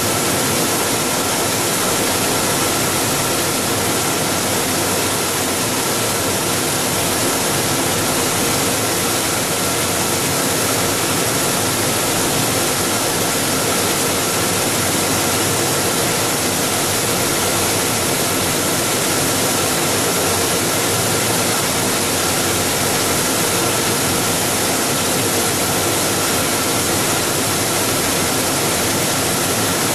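Die-face pelletizer on a plastic recycling extruder line running: a steady, unchanging machine whir and hiss with a faint high whine above it.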